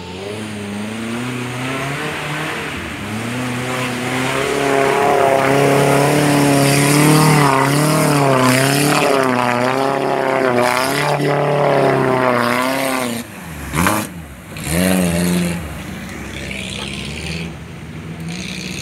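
Off-road 4x4's engine revving hard under load through a muddy creek, its pitch climbing and wavering up and down. The revs drop away about thirteen seconds in, come back in one short burst, then settle lower.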